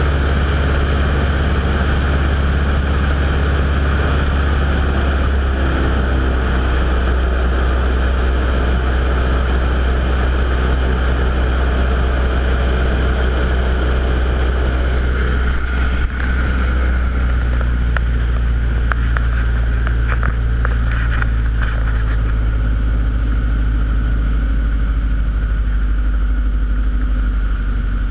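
Bush plane's piston engine and propeller droning steadily inside the cockpit in flight, the engine note shifting slightly about five seconds in and again around sixteen seconds. There is a single knock about sixteen seconds in, and a few light clicks follow.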